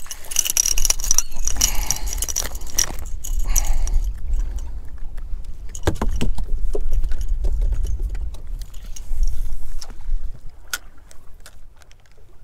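Hooked speckled trout splashing at the surface beside the boat, with a rattly jangle of tackle over the first few seconds. Sharp knocks on the boat deck follow from about six seconds in, over a low wind rumble that fades near the end.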